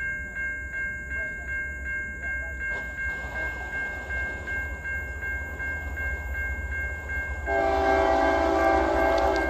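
Low-pitched Siemens Type Three electronic crossing bell ringing steadily, a little over two strikes a second, as the crossing gates come down. About 7.5 s in, an approaching locomotive's air horn sounds one long blast for about two seconds, louder than the bell, which rings on beneath it.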